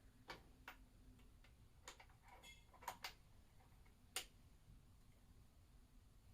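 Scattered light clicks and taps, about half a dozen at irregular intervals, as small engine parts are handled and fitted during reassembly of a motorcycle engine's cylinder.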